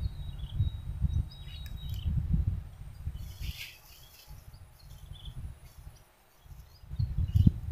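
Wind buffeting the microphone in an irregular low rumble that dies away for a few seconds past the middle and picks up again near the end, with faint short bird chirps over it.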